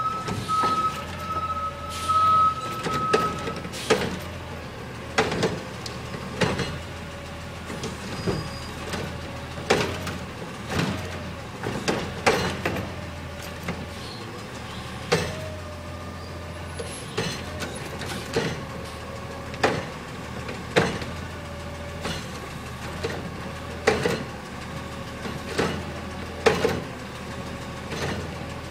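Front-loader garbage truck running, its engine and hydraulics giving a steady wavering whine, while the cart-lifting arm on its front container empties a trash cart with repeated bangs and clunks every second or two.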